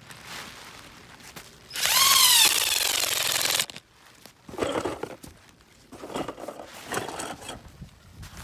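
Power drill driving a screw-type ground pin into the soil. It speeds up with a rising then falling whine, runs for about two seconds under load, and stops abruptly; quieter scraping sounds follow.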